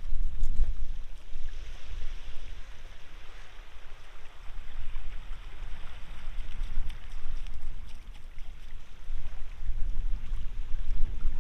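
Wind buffeting the microphone in gusts over the rush of sea water at the shore, with the water's hiss swelling for a few seconds about a second in.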